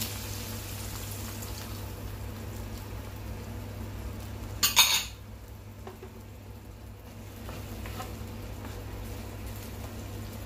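Beef stock poured into a pan of frying beef and onions, with a faint hiss of sizzling at first, over a steady low hum. About halfway, a brief loud clatter of a dish against the pan, then a few light taps as a wooden spatula stirs.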